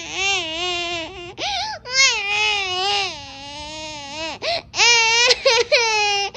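A child's voice wailing in pretend crying: a string of long, high, wavering cries broken by short gaps.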